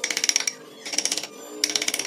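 Wooden mallet striking a carving chisel into wood in three quick runs of rapid taps, with the chisel ringing faintly, over background music.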